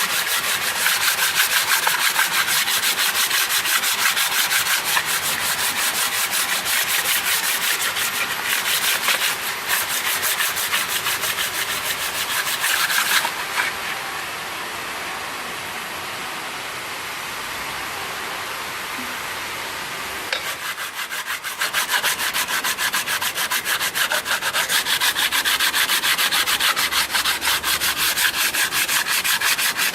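Continuous fast rubbing and scrubbing on a Toyota 2GR-FE aluminium cylinder head as its surfaces are cleaned. It eases into a steadier, quieter rub for several seconds midway, then the fast strokes pick up again.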